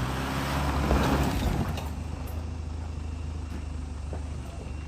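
Mitsubishi Pajero's diesel engine running. It surges louder for about half a second, about a second in, then settles to a lower, steady run.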